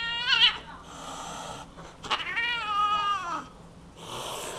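Domestic cat giving long, drawn-out aggressive yowls at a reaching hand, with hisses in between. The second yowl drops in pitch at its end, and another hiss follows near the end: a defensive warning.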